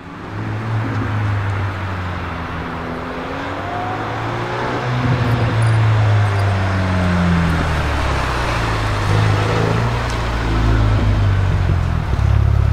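Mercedes-AMG CLA35 4Matic+ with a Milltek aftermarket exhaust, its turbocharged four-cylinder running at low revs as the car drives slowly, the pitch rising and falling gently; near the end it settles to a steady idle.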